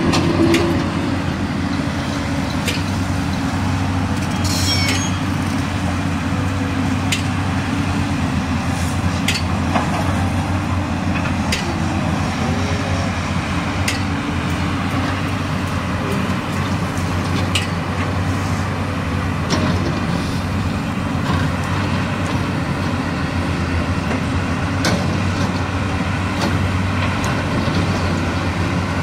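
Diesel engines of JCB tracked excavators running steadily under load as they dig in gravel, with occasional sharp clicks and clanks from the buckets and stones.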